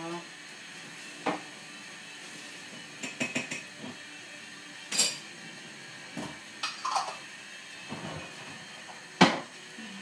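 Kitchen dishes and utensils clinking and knocking as they are handled and put away at the counter: a string of separate clatters, with a quick run of small clicks and the loudest knock near the end.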